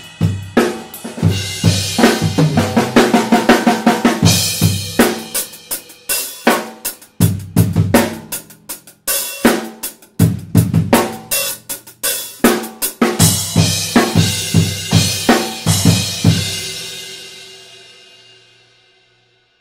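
Drum kit played with sticks: a snare, bass drum and hi-hat groove with fills and cymbal crashes on Sabian HH and HHX cymbals. About 17 s in the playing stops and the last cymbal hits ring out and fade away.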